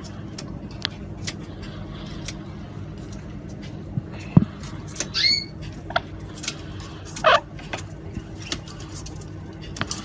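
Parisian frill canaries giving two short, falling chirp calls, about five and seven seconds in, over scattered light clicks and taps, the sharpest a little past four seconds, with a steady low hum underneath.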